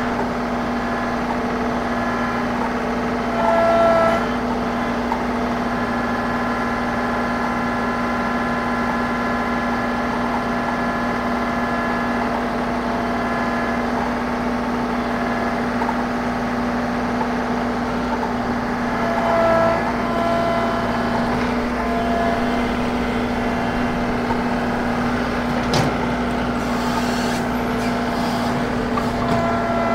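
John Deere 2038R compact tractor's diesel engine running steadily with a constant whine while the front loader works the bucket against a stump. The sound swells briefly a couple of times, about four seconds in and again near twenty seconds, as the load comes on.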